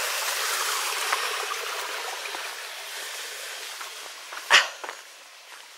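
Shallow woodland stream trickling over stones, its hiss slowly fading. About three-quarters of the way through, one short, sharp sound close by cuts in briefly.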